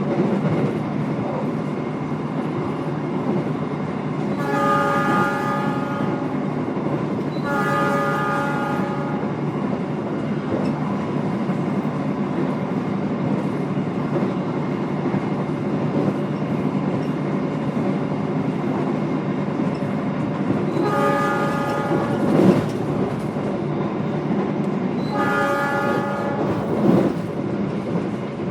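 Passenger train running, heard from inside the carriage: a steady rumble of wheels on rails, with the horn sounding in two pairs of blasts, each about a second and a half long, a few seconds in and again past the middle. Two sharp knocks stand out near the end.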